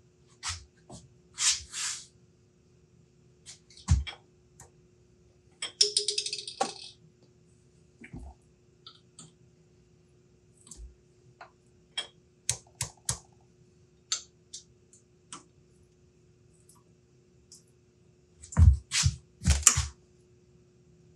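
Irregular metal clicks, clinks and short scrapes from hand work with steel tools at a stopped metal lathe's chuck, with the loudest scraping clatter near the end. A faint steady hum runs underneath.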